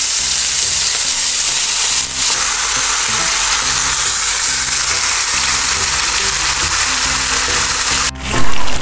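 Marinated chicken pieces frying in hot oil in a wok: a loud, steady sizzle that drops out briefly near the end.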